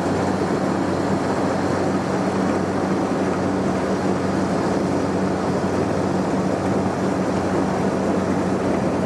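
Floodwater rushing and churning through a breach in a rice-field dike, steady throughout. Underneath runs a steady low engine drone.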